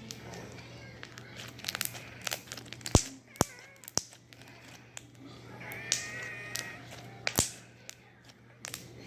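Homemade glue-and-detergent slime being squeezed and stretched by hand, giving sharp irregular pops and clicks, the loudest about three seconds in and another past seven seconds.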